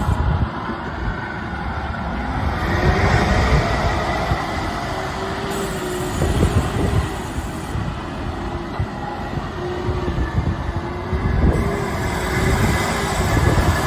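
Backhoe loader's diesel engine running steadily with a heavy rumble, and a whine that rises about two seconds in and then holds.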